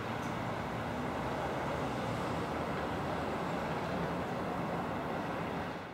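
Steady background rumble of distant traffic, fading out near the end.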